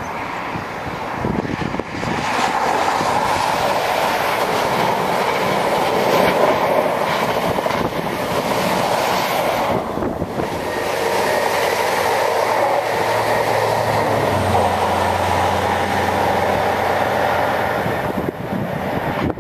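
A train passing at speed, its wheels running on the rails, with a steady low hum joining in about two thirds of the way through. The sound eases off near the end.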